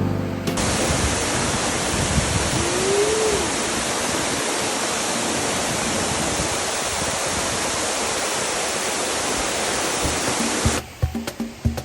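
Steady, full rush of a waterfall, an even hiss with no rhythm. Background music cuts out just after the start and comes back near the end, and a short rising-and-falling tone sounds about three seconds in.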